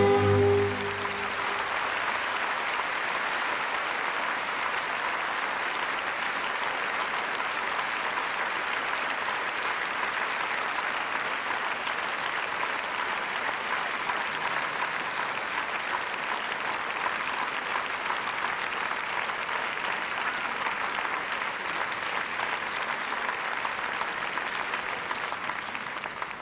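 A large theatre audience applauding steadily, just after the orchestra's final chord ends about half a second in; the applause fades out near the end.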